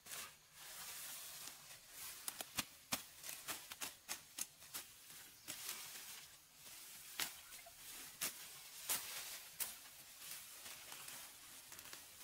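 Machete hacking through grass and ferns while the plants are torn out by hand: irregular sharp snaps and cuts, a few a second, over a soft rustling of leaves and stems.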